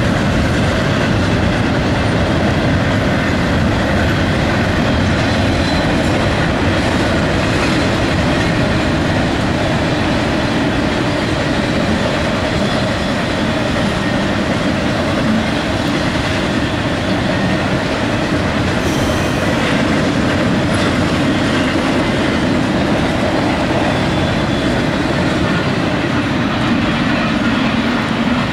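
Intermodal freight train cars passing at speed, a steady, loud rumble of steel wheels on the rails.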